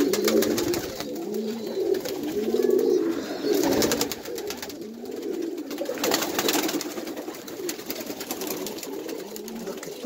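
Birmingham Roller pigeons cooing in their loft, several birds' low, wavering coos overlapping. Two short bursts of rustling noise come about four and six seconds in.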